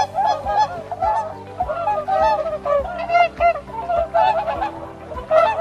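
Swans honking: a rapid string of short calls, several a second, over background music.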